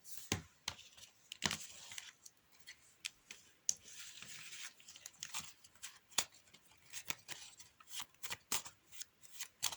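Playing cards being handled: irregular sharp snaps of card on card with a few short sliding rustles.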